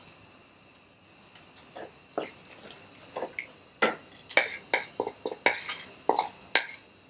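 A cooking utensil scraping and clinking against a pan as sautéed herbs are scooped into a pot of stew: a run of short clinks and scrapes that starts about two seconds in and is thickest in the second half.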